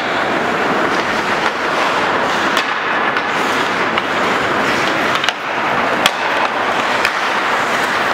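Ice hockey play: steady scraping of skates on the ice, with a few sharp clacks of sticks and puck.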